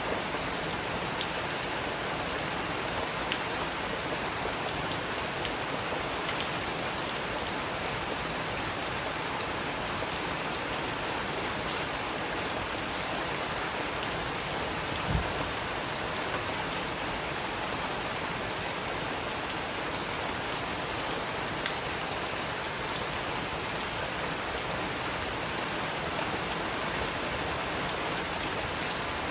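Steady rain falling, with a few sharp fireplace crackles now and then and a single low thump about halfway through.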